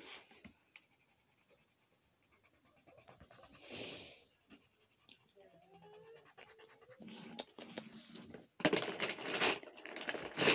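Colored pencil scratching across a coloring-book page, with a soft rustle about four seconds in. In the last few seconds a low voice and louder rustling come in, the loudest sound here.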